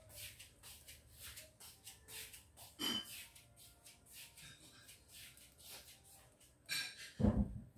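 Pork cubes frying in a pan without oil, sizzling with irregular small crackles as the fat begins to render. A louder sound comes about three seconds in and again near the end.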